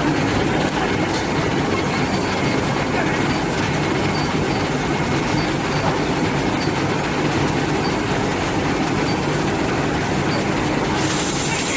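Automatic brazing machine for diamond saw blade segments running with a steady, dense mechanical rumble and a faint steady tone. A high hiss comes in near the end.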